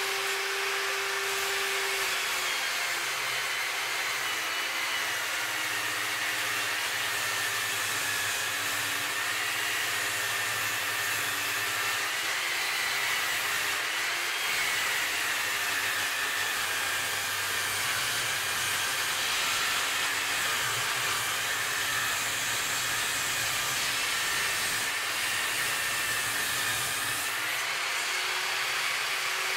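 Cheap benchtop table saw ripping a long board of black locust hardwood lengthwise: the motor and blade run steadily under load, with a high whine that wavers slightly as the blade works through the hard timber.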